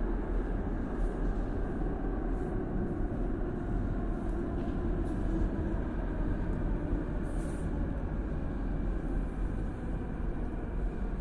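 Steady low rumble of a Moscow Metro train running in the tunnel, heard from the platform, a little stronger through the first half.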